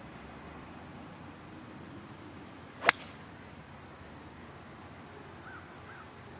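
A single sharp crack of an 8-iron striking a golf ball off turf, about three seconds in.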